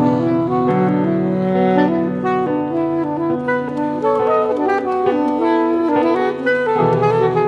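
Instrumental music led by saxophone: overlapping held notes over a low sustained note that shifts pitch a few times.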